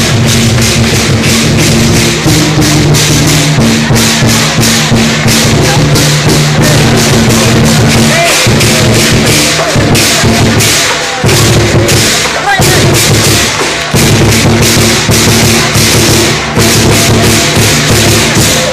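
Chinese dragon dance percussion: drums and cymbals beaten in a fast, steady beat, with a few brief breaks.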